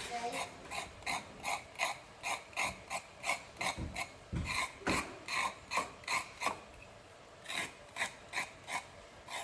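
Kitchen knife scraping the skin off a carrot in quick, even strokes, about three a second, with a short pause about two-thirds of the way through before the strokes resume.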